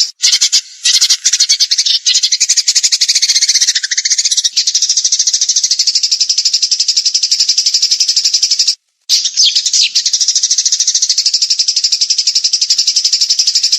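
Songbird singing a fast, rattling trill of rapid even pulses that runs on, broken twice by brief gaps.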